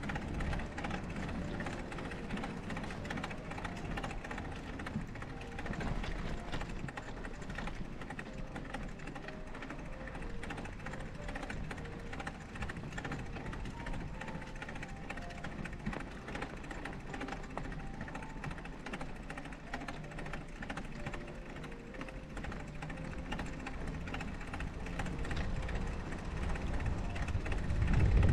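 Gentle background music, a slow melody of single notes, over a steady rushing noise. A low rumble builds near the end.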